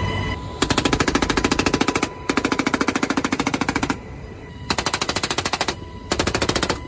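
M240B machine gun fired from a helicopter door in four bursts of rapid automatic fire. The first two bursts last about a second and a half each, and the last two are shorter, with brief gaps between them.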